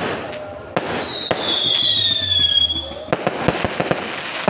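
Aerial fireworks going off: a sharp bang, then a high whistle falling slightly in pitch for about two seconds, then a rapid run of crackling pops as a gold crackle burst opens.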